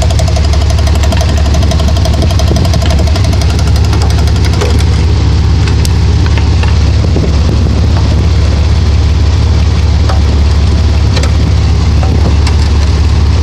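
1992 Dodge Dakota engine running with a rapid, even knock, which the owner wonders could be the torque converter.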